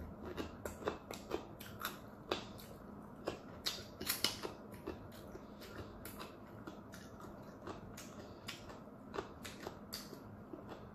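Close-miked chewing: wet mouth clicks and lip smacks at irregular intervals, with a few sharper ones about two and four seconds in.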